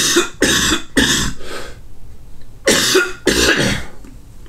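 A man coughing into his fist: a run of about four coughs, a pause, then two more.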